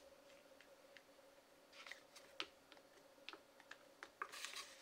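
Plastic scraper pushing a frozen ice cream sheet across the chilled metal plate of a Hapi Roll ice cream roll maker, rolling it up: faint scattered ticks and light scrapes, with a longer scrape near the end. A faint steady hum sits underneath.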